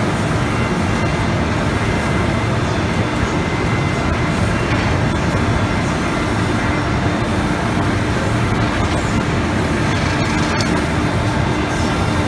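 Steady drone of a running automatic-loading CNC router line and its dust collectors, carrying a few steady hum tones. A single sharp click comes about ten and a half seconds in.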